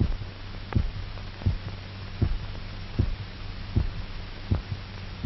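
Heartbeat sound: slow, regular thumps about every three-quarters of a second, over a steady low hum. It stands for the revived dog's heart beating on its own after the artificial circulation is disconnected.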